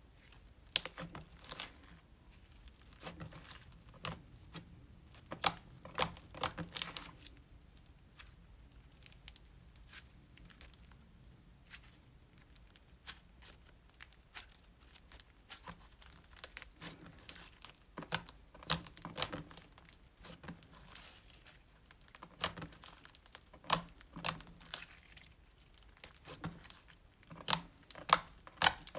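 Hands squishing and stretching glow-in-the-dark glue slime, giving irregular sticky clicks and pops in loose clusters.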